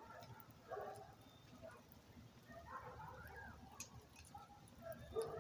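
Campfire burning faintly, with a few sharp crackles, and a few short, quiet whines about a second in and around three seconds in.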